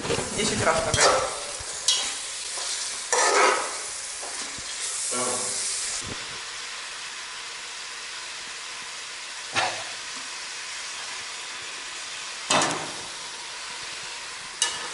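Chopped carrot and onion sizzling in oil in a kazan on a hot plate as they are sautéed for a soup base, stirred with a metal fork that scrapes against the pot. A run of quick scrapes in the first few seconds with a brief louder hiss, then the steady sizzle with three single scrapes.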